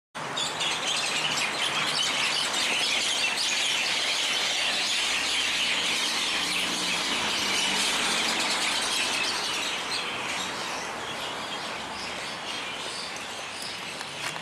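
Many birds chirping together in a tree, a dense, continuous, really loud chorus of chirps that grows somewhat quieter from about ten seconds in.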